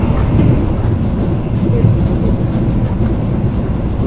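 Passenger train running along the track: a steady, loud low rumble of wheels on rails.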